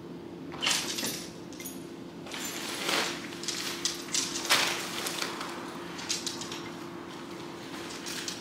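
Scattered clinks, rattles and rustles as the apartment's front door is opened and a loaded wire rolling shopping cart is brought up to it, over a steady low hum.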